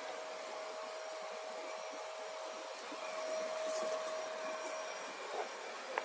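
Homemade bee vacuum running steadily with a constant whine and hiss.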